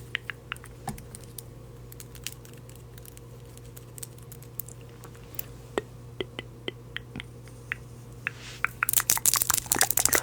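Scattered light clicks and taps close to the microphone over a steady low hum, turning into a dense, louder run of crackling clicks about nine seconds in.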